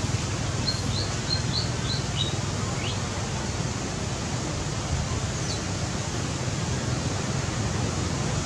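Steady rushing outdoor background noise, with a bird giving a quick run of about six short, high, falling chirps in the first three seconds and one more faint chirp later.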